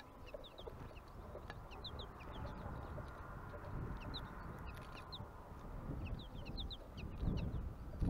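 Small songbirds at a feeder chirping: many short, high chirps that drop in pitch, often in quick pairs and threes, over a low rumble that grows louder toward the end.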